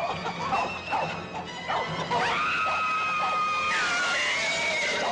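Horses whinnying and squealing as they spook and rear, over background music. A long shrill whinny starts about two seconds in, holds, then falls away.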